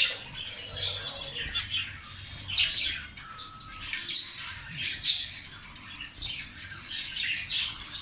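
Many caged budgerigars and zebra finches chirping and chattering at once in overlapping short, high calls, with a couple of sharper calls about four and five seconds in.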